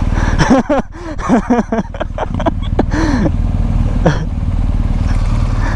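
BMW GS Adventure motorcycle engine idling steadily, its note getting fuller about two seconds in while another motorcycle climbs a rock slab ahead. Short voice sounds come over it in the first two seconds and again briefly near the middle.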